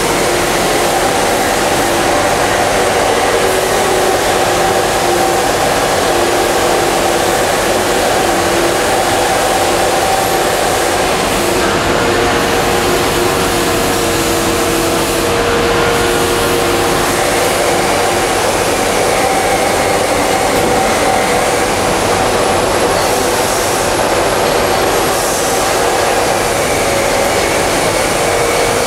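Industrial roller coater with its UV curing unit running: a loud, steady machine hum with a few held tones over a constant rushing noise.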